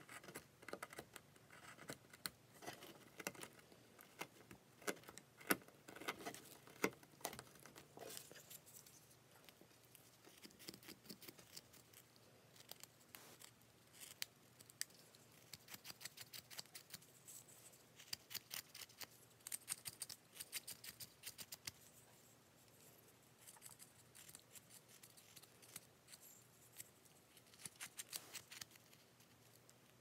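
Small hand knife cutting into a wooden bird carving: faint scratchy slicing and clicking as thin shavings come off, in quick runs of short cuts.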